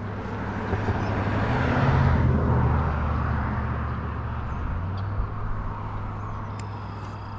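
A car passing on the road, its engine and tyre noise swelling to a peak about two seconds in and then slowly fading away.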